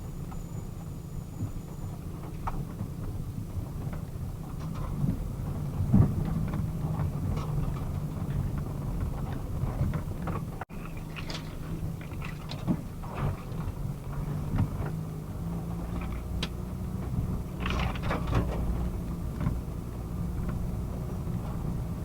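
Low, steady rumble of a car's engine and tyres as picked up by a dashcam inside the car, with scattered light knocks and clicks. It cuts out for an instant about eleven seconds in.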